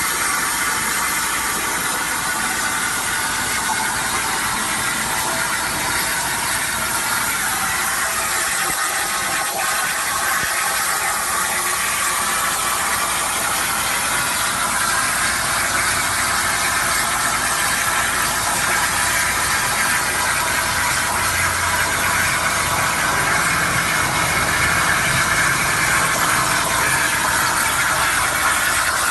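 CNC plasma cutting machine at work: a steady, loud hiss from the cutting torch that carries on unbroken, with a faint low hum beneath it.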